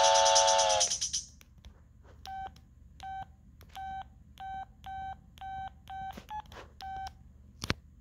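An LG VX6100 flip phone's preloaded ringtone ends on a held electronic chord that dies away in the first second. Then come about nine short keypad beeps, one per key press while moving through the menus, one of them slightly higher in pitch. A single sharp click comes near the end.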